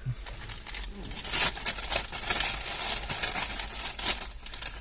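Paper burger wrapper crinkling and rustling in irregular crackles as a McDonald's chicken burger is unwrapped by hand.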